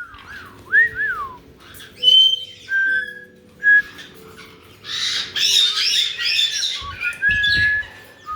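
Caique parrots whistling, with short gliding and held whistle notes, and a harsh, chattering screech that runs for about two seconds in the second half.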